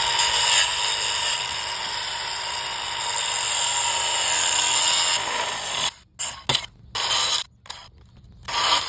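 Angle grinder with a cut-off wheel cutting through a half shaft to take off its CV joint: about six seconds of steady grinding, then several short bursts of cutting near the end.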